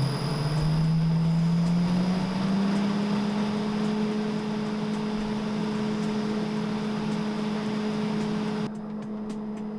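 Fuji Paudal Pulverizer hammer mill running up to speed: a motor hum that rises in pitch over the first few seconds, then runs steady. The background noise drops abruptly near the end while the hum carries on.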